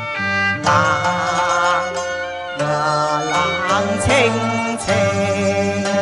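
Cantonese opera music: an ensemble of traditional Chinese instruments playing, a bowed string carrying a wavering, ornamented melody over sustained lower notes.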